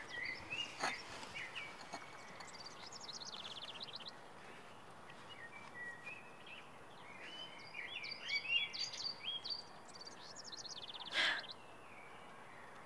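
Songbirds singing: scattered chirps and quick whistled notes with short trills, busiest in the second half, over a faint steady hiss.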